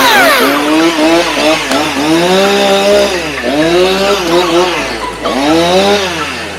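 Battery top-handle chainsaw (Husqvarna T540iXP) revved in four blips, its whine rising and falling in pitch each time, over background electronic music.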